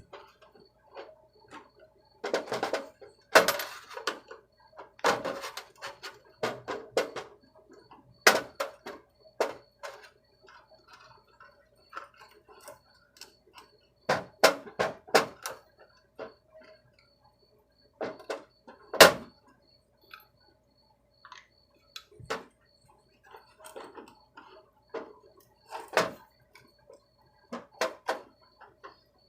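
Irregular metallic clinks, taps and knocks from hand work on a thin sheet-metal tool-box drawer and its small nails, some in quick clusters, over a faint steady hum.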